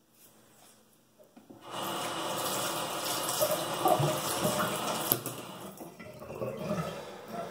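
Bathroom sink tap running, starting about two seconds in, as a shaving razor is rinsed under it; a single click about five seconds in, after which the water runs more quietly.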